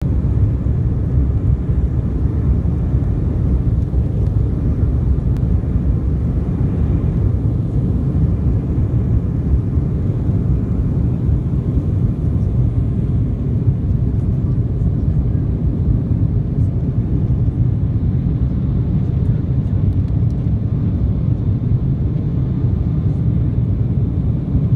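Cabin noise of a jet airliner on its takeoff run: the engines at takeoff power and the runway roll make a steady, loud, low rumble.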